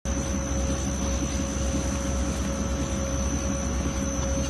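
Disc-type glass fiber chopping machine running steadily as it chops fiberglass roving fed in from bobbins. The sound is an even machine noise with a low hum and two constant whines, one mid-pitched and one high.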